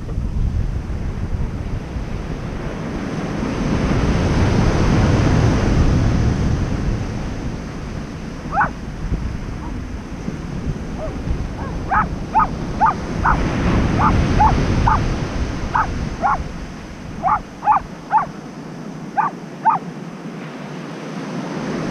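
Ocean surf breaking and washing up the beach, swelling and easing. From about a third of the way in, a dog gives a string of short high-pitched cries, some in quick runs.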